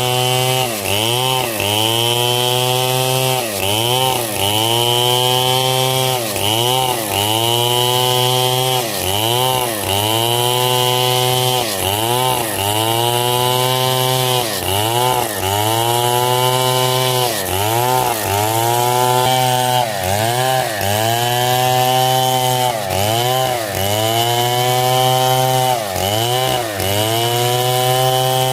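Stihl chainsaw running at full throttle while cutting hard coconut wood. The engine pitch sags and recovers about once a second as the chain bogs in the wood and frees again.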